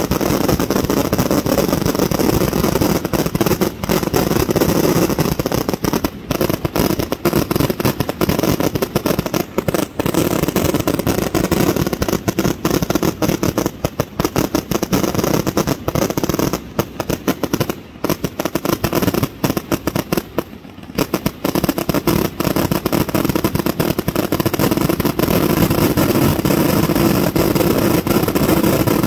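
Fireworks going off in a continuous rapid barrage: dense crackling and popping, with a few brief lulls, the longest about two thirds of the way through.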